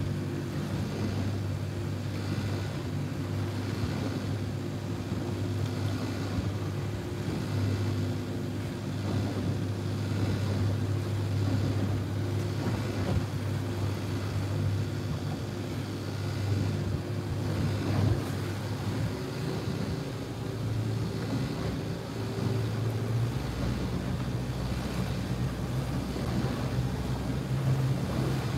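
A boat's engine running steadily, with wind and water noise over it. About 23 seconds in the engine note shifts and a deeper hum comes in.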